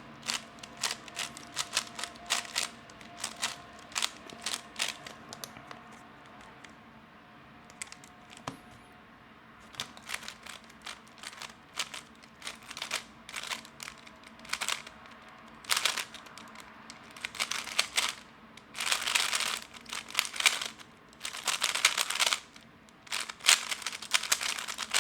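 Magnetic 3x3 speedcube being turned fast, its plastic layers clicking and clacking in quick irregular bursts, with a short lull about a quarter of the way through. The cube has been loosened, lubed and set with stronger magnets.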